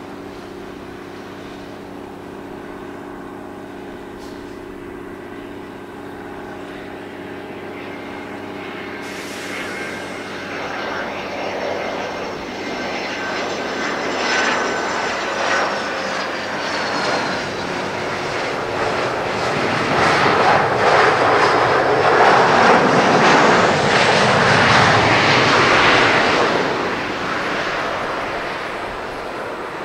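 Boeing 737-500's CFM56-3 turbofan engines landing: a steady engine whine on final approach, touchdown about halfway through with the whine falling in pitch, then a loud roar of reverse thrust for several seconds that fades as the jet slows on the runway.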